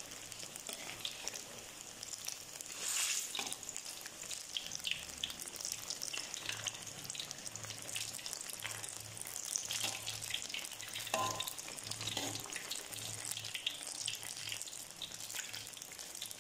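Battered banana fritters deep-frying in hot oil in an aluminium wok: a steady, dense crackling sizzle. A metal spatula scrapes against the wok a couple of times as the fritters are turned.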